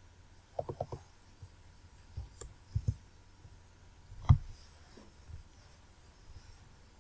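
Computer mouse and desk handling noise: a quick run of four clicks just under a second in, a few low thumps around three seconds, and one louder knock about four seconds in, while a file list is scrolled and browsed.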